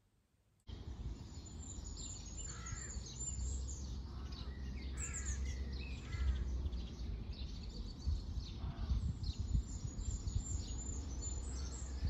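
Outdoor birdsong: many small birds chirping and trilling, with a few lower calls here and there, over a low steady rumble. It starts about half a second in.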